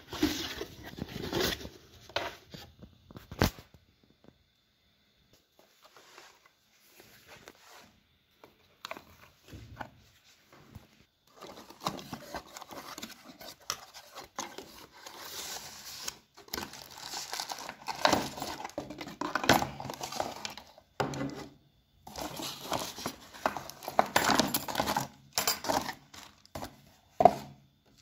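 Cardboard box being opened and its contents handled: irregular bursts of rustling and scraping cardboard and packaging, with a few sharp knocks of hard plastic parts, the loudest near the end.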